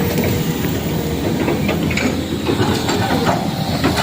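Heavy vehicle engine running: a steady low rumble with a hiss and scattered clattering.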